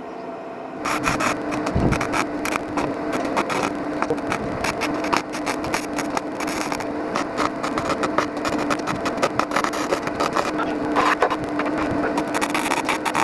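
MIG welder (Blackline MIG 200) welding a 1.2mm Zintec steel patch onto the rusted bumper support: the arc strikes about a second in and keeps up a dense, irregular crackle over the steady hum of the welder, with a couple of brief breaks.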